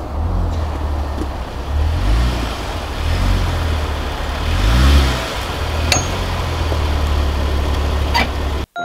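Jeep Wrangler JK's engine revving up and down repeatedly while off-roading, loudest about five seconds in, with two sharp knocks about six and eight seconds in.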